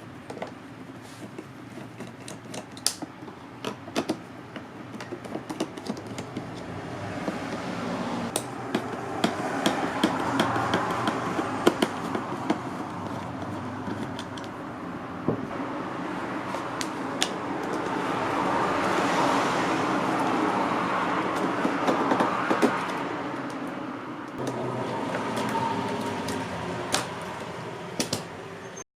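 Scattered small clicks and knocks of hard suitcase and lock parts being handled during a TSA lock repair. Under them runs a hissing noise that swells and fades twice.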